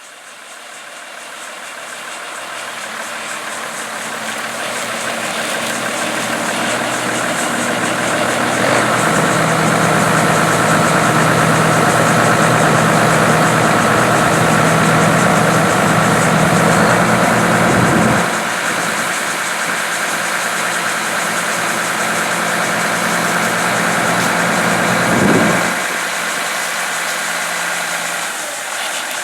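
Heavy diesel engine running steadily, fading in over the first few seconds. A steady high whine joins it about nine seconds in. Its deep low part drops away a little past halfway, and there is a brief surge near the end.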